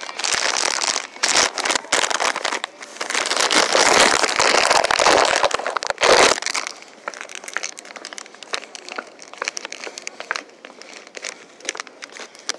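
Crinkling, rustling noise close to the microphone, loud for about the first six seconds, then dropping to a fainter crackle.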